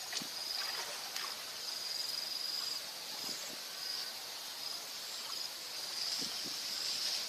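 Insects trilling at a high pitch in a steady, now-and-then broken band, over an even background hiss, with a few faint clicks.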